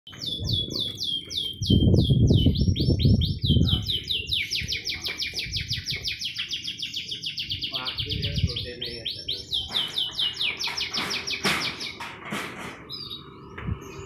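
Domestic canary singing a long song made of fast trills: runs of rapidly repeated notes that change pace every second or two, stopping shortly before the end. A low rumbling noise about two seconds in is briefly louder than the song.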